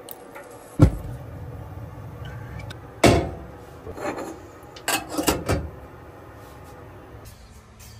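Objects being handled and set down: a sharp knock about a second in, another about three seconds in, then a quick run of clicks and knocks with some rubbing around five seconds.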